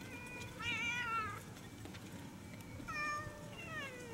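Stray cats meowing. A long, wavering meow comes in the first second and a half, then two shorter meows follow near the end, the last sliding down in pitch.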